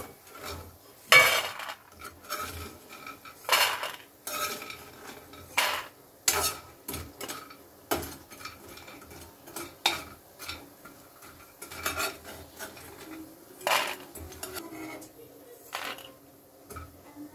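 Steel spoon scraping and clanking against a metal kadhai and a steel plate as fried moong dal badi are scooped out and transferred. Irregular clanks come every second or two, the loudest about a second in.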